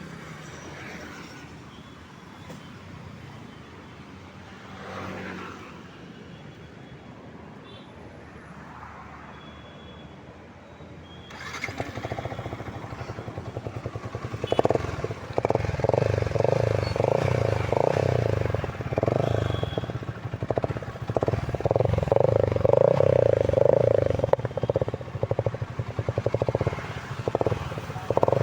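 Yamaha R15 V3's 155 cc single-cylinder four-stroke engine with a modified exhaust note, meant to sound like a KTM Duke. After a quiet stretch it comes in suddenly about a third of the way through, then runs with repeated throttle blips, its pulse swelling louder again and again.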